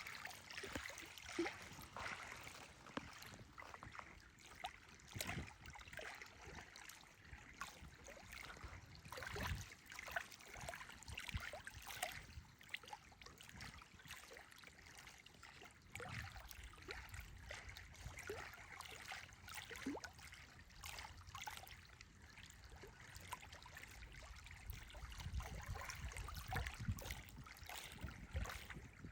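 Small water waves lapping with faint, irregular splashes and gurgles.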